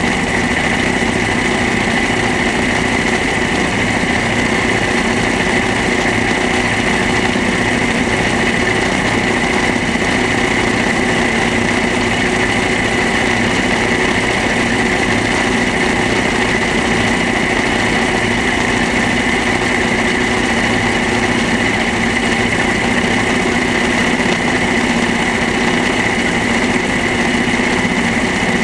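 Small vintage tractor's diesel engine running at a steady speed as the tractor drives along, towing a loader wagon.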